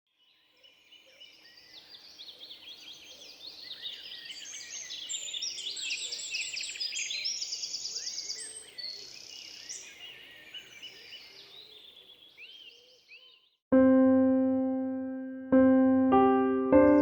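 A dense chorus of songbirds chirping and trilling over one another, fading in, swelling, then fading away. About fourteen seconds in, piano music starts with notes struck one after another, each ringing on.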